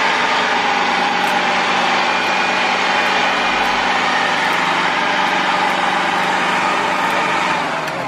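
Fendt Farmer 306 LS tractor's diesel engine running steadily at high level, with wheels working through deep mud.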